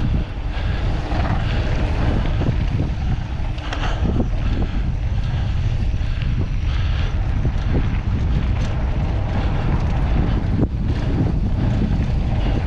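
Wind buffeting the microphone of a camera on a mountain bike riding downhill, with tyres rolling over the dirt trail and a few short knocks from the bike over rough ground.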